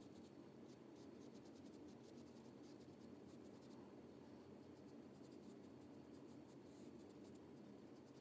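Faint, quick scratchy strokes of a thin paintbrush's bristles dragging paint across paper, over a steady low hum.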